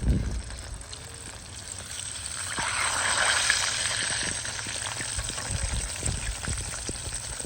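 Cauliflower sizzling as it cooks over a campfire, with scattered small pops and crackles; the sizzle swells for a couple of seconds about three seconds in.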